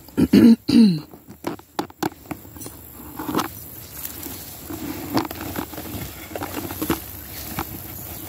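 Rustling, brushing and scattered crackles of tall grass and leafy brush against the moving phone. A short gliding voice sound comes right at the start.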